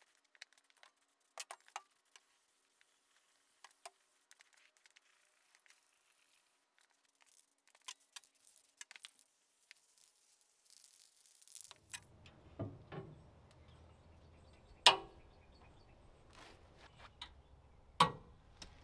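Aerosol spray-paint can hissing and clicking as steel angle brackets are coated, with one longer hiss near the end of that stretch. After about twelve seconds the sound changes to low background noise with a few sharp metal knocks, two of them loud, as a steel bracket is fitted to the base of the phase converter's cabinet.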